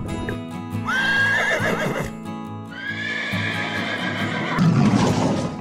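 A horse whinnying twice, each a long high call with a wavering end, over background music. Near the end comes a louder, rougher low sound.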